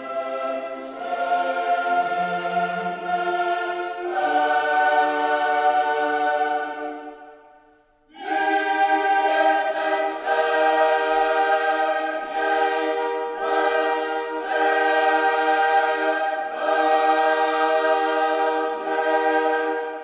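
Background choral music: a choir singing slow, held chords without instruments. It fades out for a moment about seven seconds in, then comes back in on a new chord.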